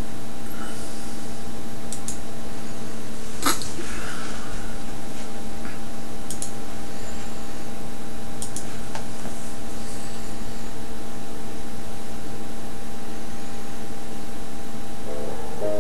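A steady, fairly loud hum made of several even tones, with a sharp click about three and a half seconds in and a few fainter clicks; piano notes begin right at the end.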